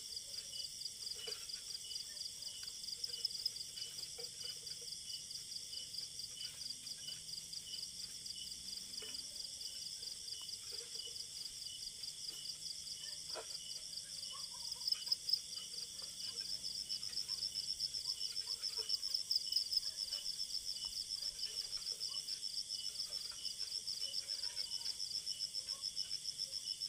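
Steady chorus of night insects: a high, rapidly pulsing trill, with a few faint knocks about halfway through.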